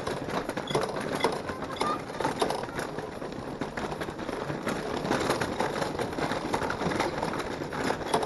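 Small wheels rolling and rattling over interlocking paving stones, a steady noise dotted with many small clicks and knocks.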